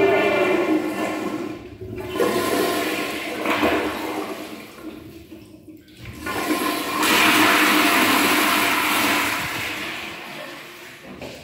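Tankless commercial toilet with a chrome flushometer valve flushing: a loud rush of water with a faint whine at first, which dies away about halfway through, then a second flush starts and runs for several seconds before tailing off.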